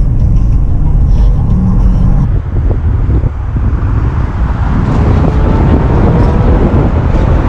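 Speedboat running at high speed, with heavy wind buffeting on the microphone over a faint steady engine whine.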